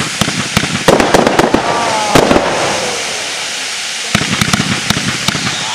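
Fireworks going off: rapid bangs and crackling, with a fresh volley starting suddenly about one second in and another about four seconds in.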